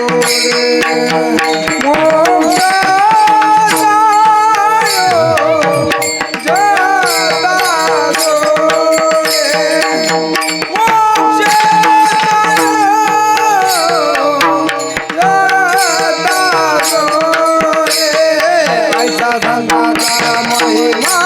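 A male voice singing a Marathi abhang in Varkari kirtan style, with long held notes and gliding ornaments over a steady drone. Hand drums and small jingling cymbals keep the beat.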